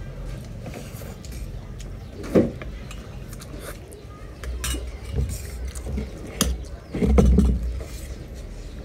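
Light clinks and knocks of cutlery and dishes, with a sharper knock about two and a half seconds in and a low rumble near the end.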